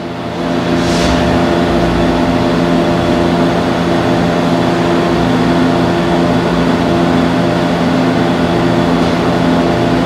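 Steady engine-like running hum: a few low steady tones under a noisy rush, swelling slightly just after the start and then holding level.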